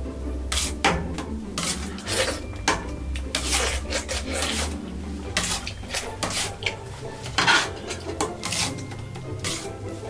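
Crunchy eating sounds close to the microphone: irregular sharp bites and chews, about one or two a second, over background music.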